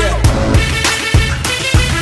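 Music track with a steady drum beat over a deep, sustained bass line.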